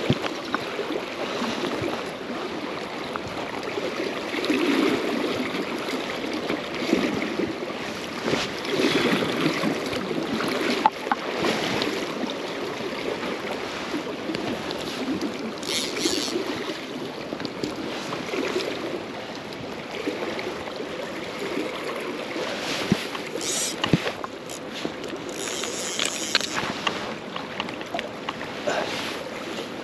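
River water running steadily past the microphone, swelling and easing unevenly, with a few short clicks.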